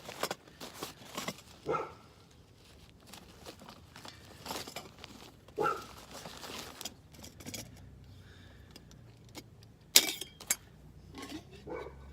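Small metal camping stove parts and cookware clinking and rattling as they are handled, in scattered sharp clinks with quiet gaps, the loudest about ten seconds in.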